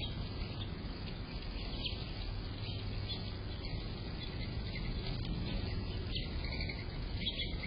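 Many birds chirping in short, scattered calls over a steady low background noise.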